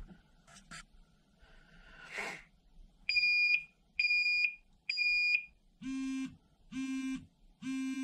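TOPTES CT-580 portable carbon monoxide detector running its start-up self-test: its buzzer gives three short high-pitched beeps about a second apart. These are followed by three short, lower, buzzing pulses, its built-in vibration motor being tested.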